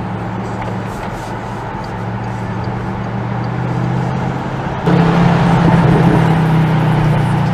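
Bentley Continental GT V8 S's 4.0 L twin-turbo V8 with sports exhaust, heard on board: a steady, fairly quiet drone at light throttle, then about five seconds in the throttle opens and the exhaust note steps up sharply louder and stays there as the car accelerates.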